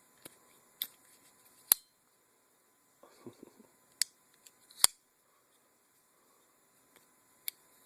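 Sharp metallic clicks of a Microtech Select Fire folding knife being worked by hand, about six in all with the loudest pair near two and five seconds in, as the blade is opened and locked and closed again; a brief handling rustle about three seconds in.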